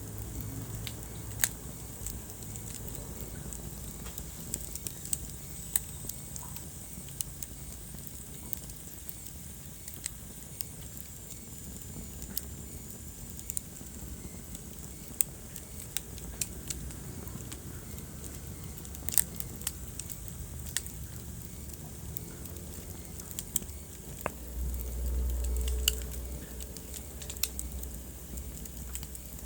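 Wood fire crackling, with scattered sharp pops and snaps over a steady low rumble of flames. About 25 seconds in, a louder low rumble swells for a couple of seconds.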